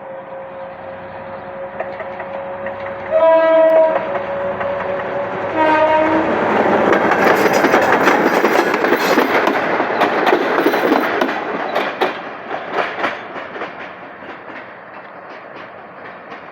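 G22 diesel locomotive hauling a coach past: its horn sounds two blasts about three and six seconds in. The train then goes by with loud wheel clatter over the rail joints, which fades away as it passes.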